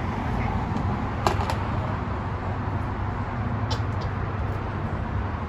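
Steady rumble of road traffic from passing cars, with a few brief sharp clicks, two close together about a second in and another near four seconds.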